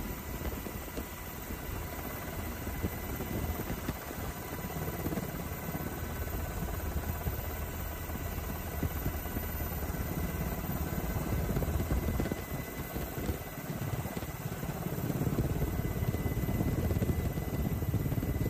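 Military firefighting helicopter running in flight, a steady rotor and engine noise with a faint steady whine, growing louder over the last few seconds.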